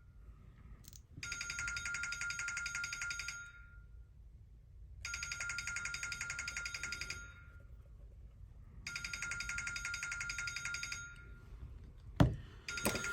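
A phone ringtone sounding for an incoming call that goes unanswered: three rings of about two seconds each with short pauses between, a fourth starting at the very end. A sharp click about twelve seconds in.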